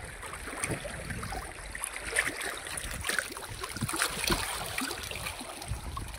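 Small waves lapping against a rocky shore, with scattered splashes and clicks, most around the middle, as a hooked fish is pulled from the water and lifted out.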